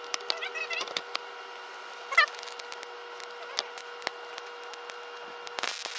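Audio sped up four times: a steady electrical hum under scattered clicks, with squeaky chirping near the start and a louder short chirp about two seconds in, the sound of voices at four times speed. A brief burst of noise comes near the end.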